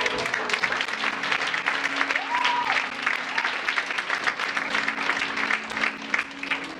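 Audience applauding, dense clapping from many hands, over quiet music holding a low note.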